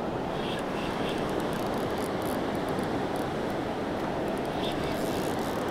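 Steady rushing of a large, fast river's current, even and unbroken.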